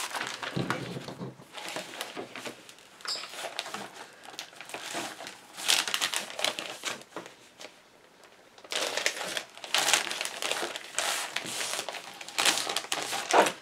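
Large clear plastic zip bag crinkling and rustling as a paper pack is worked into it, in irregular bursts, with a brief lull about eight seconds in and louder handling after.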